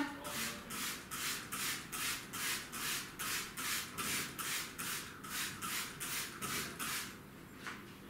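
A cloth scrubbing back and forth on a kitchen counter, a steady rhythm of about two to three wiping strokes a second, stopping about seven seconds in.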